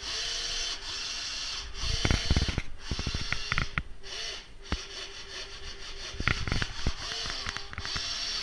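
Small electric motor run in repeated short bursts, switching on and off about once a second, with a few clattering knocks in between.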